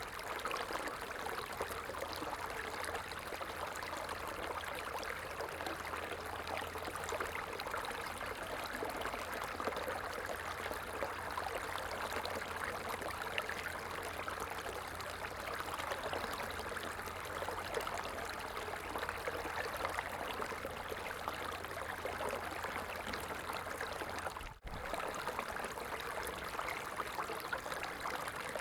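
Running water flowing steadily, an even splashing rush, with a momentary break about four seconds before the end.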